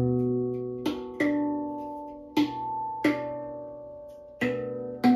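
MAG Instruments B Amara 9 handpan in ember steel, played with the hands: about six single notes struck slowly, each left to ring out and fade before the next.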